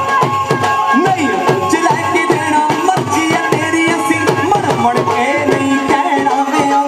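Instrumental bhangra music: a steady drum beat of about three strokes a second under a held melody line.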